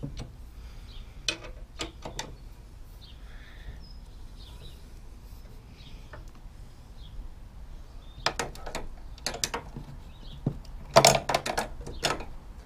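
Sharp metallic clicks and clinks from a steel spare-wheel-carrier bracket and its fittings being handled and offered up against a Land Rover Defender's rear door, a few at first and then quicker clusters near the end, the loudest about eleven seconds in. Birds chirp faintly behind.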